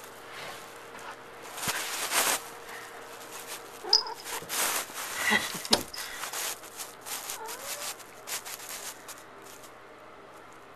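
A house cat shut in a bathroom, working at the closed door with a run of sharp scratching and rattling strokes, with a few short meows in between. The cat is trying to get out. The noise dies down near the end.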